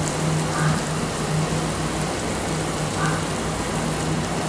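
Mussels in green chilli sauce sizzling steadily in a wok over the heat, under a steady low hum.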